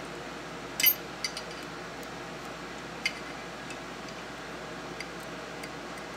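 Light metallic clicks and clinks of small steel parts in a Remington Model 12 .22 pump rifle's receiver being handled while the cartridge retainer is worked into place: a sharp cluster about a second in, then single clicks near three and five seconds, over a steady hiss.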